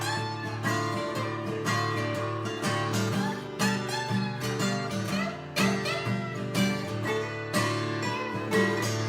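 Acoustic guitar played in an instrumental passage of a song, with rhythmic plucked and strummed chords.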